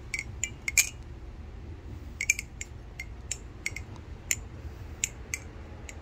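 Polaris balisong (butterfly knife) being flipped: sharp metallic clicks as its handles swing round and knock together, about a dozen over six seconds, some in quick clusters, the loudest just under a second in.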